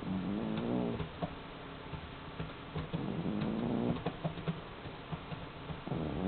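A cat snoring in its sleep: drawn-out snores about a second long, coming roughly every three seconds, with a new one starting near the end. Light clicks fall between the snores.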